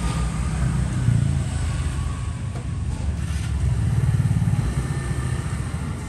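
Low rumble of motor vehicle engines passing, swelling about a second in and again around four seconds in.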